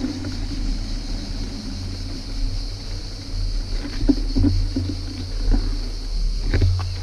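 Wind rumbling steadily on a bike-mounted action camera's microphone while riding a road bicycle, with tyre noise on the asphalt and a few short knocks about four seconds in and near the end.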